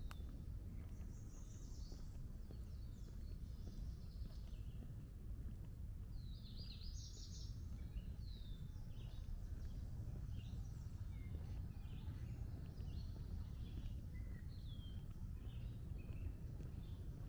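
Several songbirds chirping and trilling in woodland, short calls coming one after another with a busier burst of song about six seconds in, over a steady low outdoor rumble.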